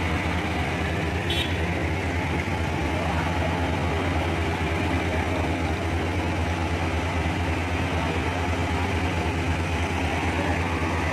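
Fire engine's engine idling steadily: a low, even hum with a fast regular pulse. A brief sharp click about a second and a half in.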